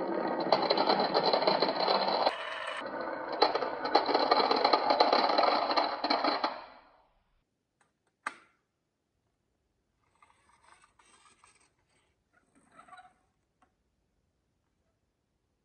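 Many marbles rolling and clattering down a marble run track in a dense, continuous rattle that dies away after about six seconds. A single sharp click follows, then a couple of faint, brief rattles.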